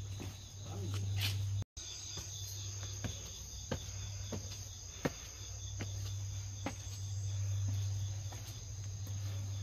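Insects chirping in a steady, high trill, with footsteps tapping on stone steps about once or twice a second, over a steady low hum. The sound drops out briefly about two seconds in.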